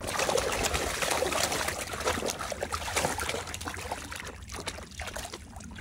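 Rustling and swishing of long wet grass, with many small crackles, easing off toward the end.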